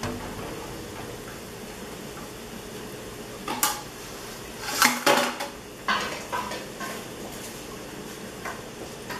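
Wooden spoon stirring in a metal pot of sautéing onion and bell pepper, with a faint steady sizzle. Several sharp knocks of the spoon against the pot come through, loudest about five seconds in.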